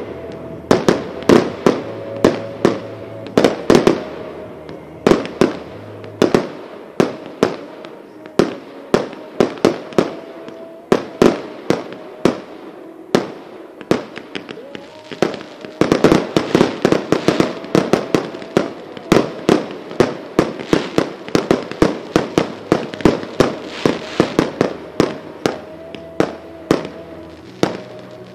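Small consumer fireworks (class 1.4G, up to 50 mm calibre) going off in a rapid string of sharp bangs, several a second, with crackling between them. The firing thins out around the middle and is densest again past the halfway point.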